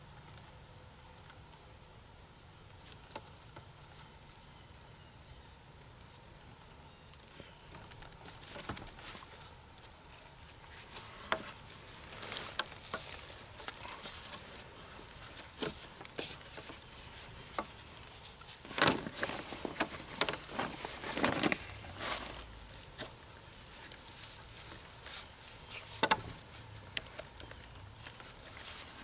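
Handling sounds of a square lash being tied: thin cord pulled and wrapped around bark-covered wooden poles, heard as scattered rustles and scrapes. These are sparse at first and become busier and louder past the middle.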